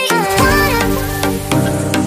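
Background music with a steady beat; a deep bass line comes in just after the start, under a gliding lead melody.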